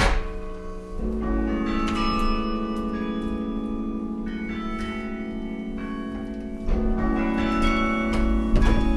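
Carillon bells playing: chords struck and left to ring on, a low bell ringing with a slow pulsing waver through the middle, and a fresh flurry of struck notes near the end.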